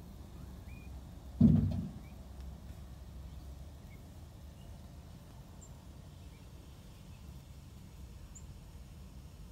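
A low steady rumble with a few faint, short bird chirps scattered through, and a single dull thump about one and a half seconds in.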